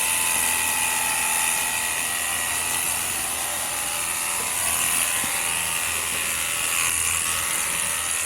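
Ontel Turbo Jet HydroX5 Pro cordless pressure washer running steadily, its small battery-powered pump motor humming under the hiss of the spray through the foam bottle attachment.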